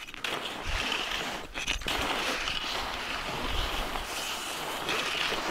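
Skis sliding over groomed, packed snow with a steady hiss, and a few dull thumps of wind and handling on the microphone.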